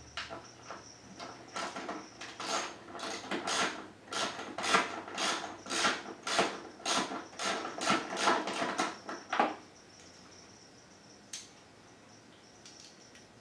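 Hand ratchet with a socket clicking in repeated strokes, about two a second, while loosening the bolts that hold a dirt bike's number plate; it stops about nine and a half seconds in.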